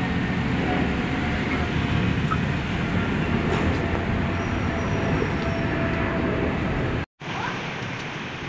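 Steady city street traffic noise, a low rumble from motorcycles and cars on the road. It cuts off abruptly about seven seconds in.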